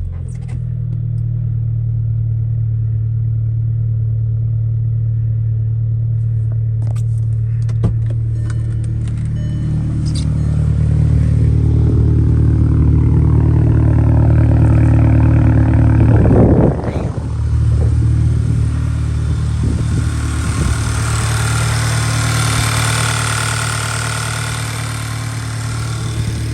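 MK5 Volkswagen wagon's engine idling steadily just after starting, with a freshly replaced PCV valve. Wind buffets the microphone at times, most strongly in the last few seconds.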